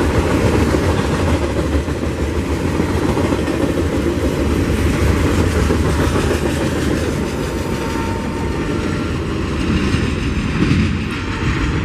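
Freight cars (boxcars and gondolas) rolling past close by: a steady rumble and clatter of steel wheels on the rails.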